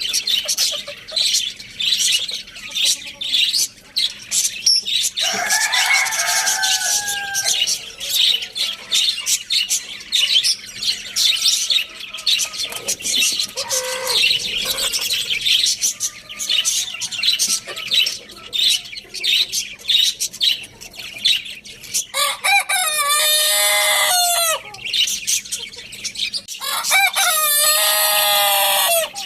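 Rooster crowing, two loud, long crows in the second half, with fainter calls earlier, over a constant chatter of many small birds chirping.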